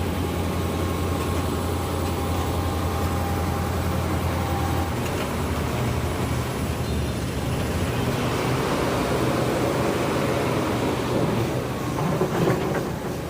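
Heavy diesel engine running steadily with a low hum. About five seconds in, the tone shifts and a rougher rumble takes over.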